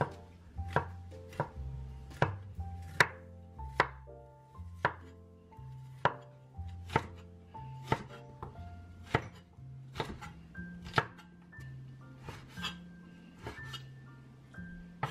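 Chinese cleaver chopping through peeled bamboo shoot and then pork belly on a wooden cutting board. The blade knocks sharply on the board about once a second.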